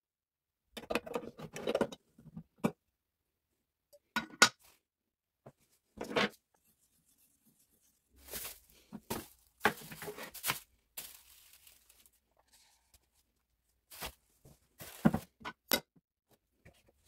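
Intermittent handling noises of a metal paint can being opened, stirred with a wooden stick and poured into a plastic-lined roller tray: short knocks, scrapes and rustles separated by quiet gaps.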